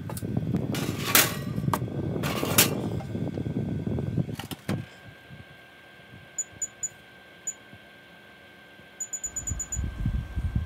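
Low rumbling with two sharp clatters, then the Gorenje oven's touch-control panel beeping: four single short beeps, then a quick run of about seven as the baking timer is set.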